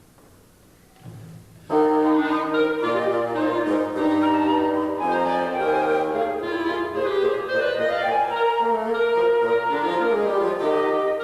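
Woodwind quartet of two flutes, clarinet and bassoon starting a medley of Christmas carols: a soft low note about a second in, then the full group comes in together with held chords and a moving melody.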